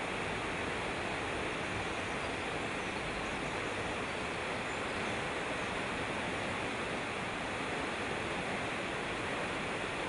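Mountain stream rushing over rocks in small cascades, a steady, even rush of water.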